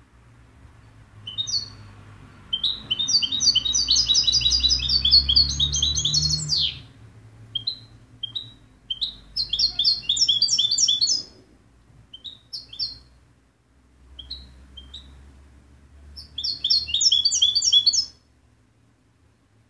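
European goldfinch singing: bursts of rapid, high twittering trills, the longest lasting about four seconds, separated by short single call notes. The song stops shortly before the end.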